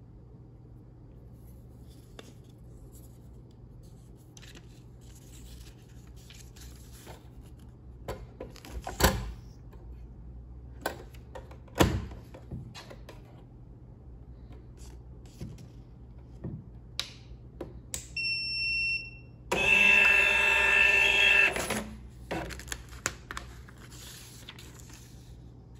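Zonerich 80 mm thermal receipt printer: two loud plastic clacks about three seconds apart as the roll is dropped in and the cover is shut, then a long high beep and a couple of seconds of the line-thermal print mechanism whirring as it prints a self-test receipt. Light handling clicks and rustling of paper in between.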